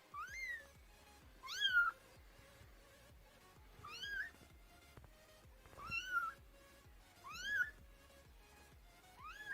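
A kitten meowing repeatedly: short, high-pitched calls, each rising in pitch, about every second and a half, the contact calls of kittens calling for their mother.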